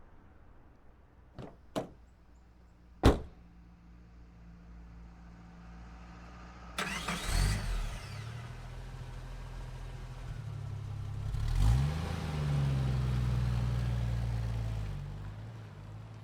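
A car sound effect: two light clicks and a sharp thump, then about seven seconds in an engine is cranked and catches. It runs, rises in a rev around twelve seconds, holds for a few seconds and then eases off.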